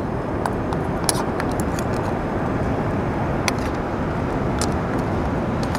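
Dungeness crab boiling in chili sauce in a steel wok: a steady rushing bubble with scattered sharp pops and ticks.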